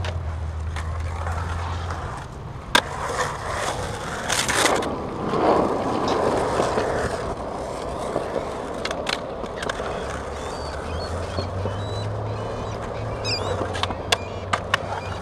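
Skateboard wheels rolling across a concrete bowl, with sharp clacks now and then as the board and trucks hit the concrete. A low hum sits underneath at the start and again in the second half.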